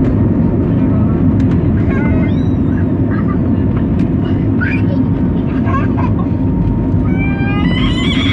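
Steady loud rumble of an Airbus A320's jet engines and airframe heard from inside the passenger cabin. Scattered voices sound over it, and near the end a young child starts a rising, whining cry.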